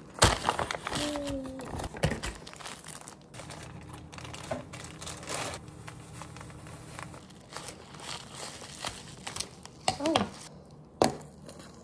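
Crinkling and rustling of something being handled, made up of many short irregular clicks and crackles.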